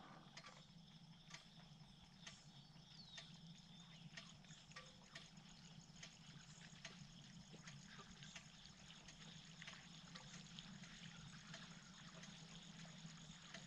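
Near silence: faint background with scattered light ticks.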